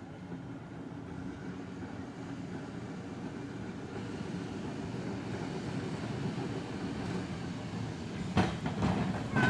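1902 London United Electric Tramways open-top double-deck tram no. 159 running along street track, its rumble growing louder as it approaches. Near the end its wheels clatter over the rail joints.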